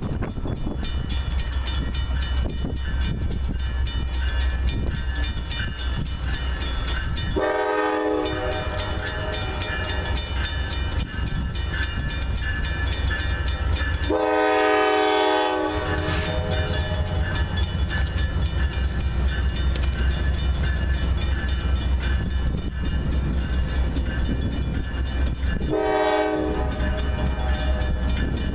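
Norfolk Southern diesel locomotive approaching with a steady low engine rumble, sounding its horn three times: a short blast about seven seconds in, a longer one midway, and another short one near the end. A grade-crossing bell rings steadily underneath.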